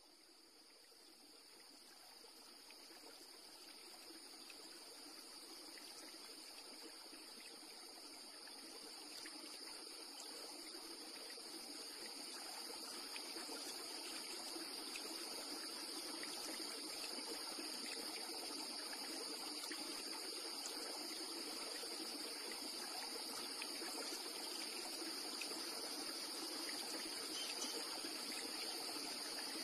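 Steady rush of flowing water, fading in and growing louder over the first half, with a steady high-pitched tone running above it.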